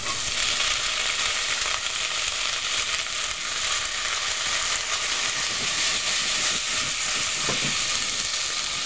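Corn kernels sizzling in a hot pot of bacon fat and butter just after being poured in: a loud, steady frying hiss.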